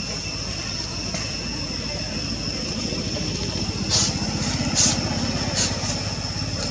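Steady low engine-like rumble under a continuous high-pitched insect drone, with three short high chirps about four, five and five and a half seconds in.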